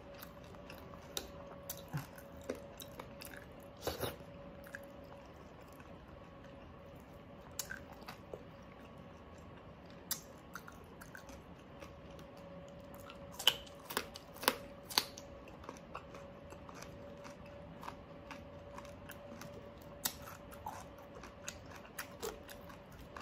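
A person chewing food close to the microphone, with scattered crisp crunches and bites and a quick run of sharper crunches about 13 to 15 seconds in. A faint steady hum runs underneath.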